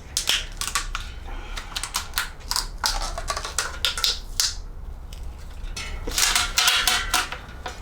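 Tubeless rim tape being pulled off its roll and stretched tight around a mountain bike rim, giving irregular sticky crackles and short ripping rasps, with a denser run of rasps near the end.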